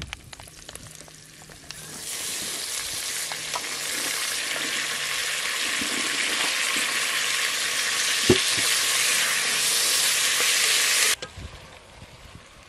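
Tomatoes and onions sizzling as they are sautéed in a stainless steel pot, stirred with a wooden spoon. The sizzle builds from about two seconds in, a single knock sounds partway through, and the sizzle cuts off suddenly near the end.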